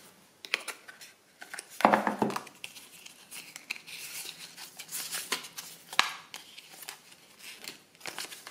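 Cardboard and paper packaging of an iPhone 13 Pro Max box handled by hand: the card paperwork sleeve is lifted out and turned over, with rustling, scraping and small clicks, and one sharper click about six seconds in. A brief hum of a voice comes about two seconds in.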